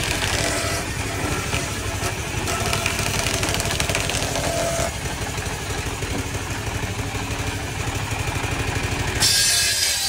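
Belt-driven sawmill circular saw running with a steady, engine-like drone while it cuts a log. About nine seconds in, the low drone drops and a bright, hissing cut takes over.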